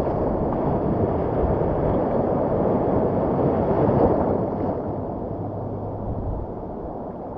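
Sea waves washing on a beach, mixed with wind, as a steady rushing noise that slowly grows quieter over the last few seconds.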